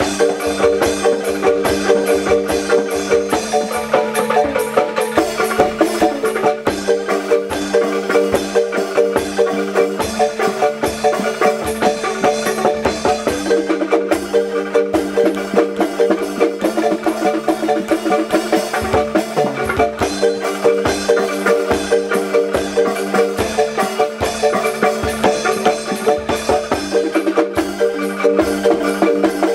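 Music played on wooden or bamboo mallet percussion: a fast run of repeating notes over a steady beat, the phrase changing about every three seconds.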